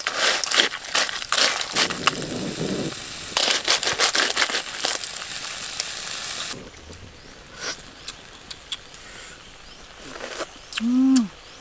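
River clams in their shells clattering and scraping in a wok as a wooden spatula stirs them, a dense rattle of shell on metal for about six seconds. Then it goes much quieter, with a few scattered clicks and a short hum near the end.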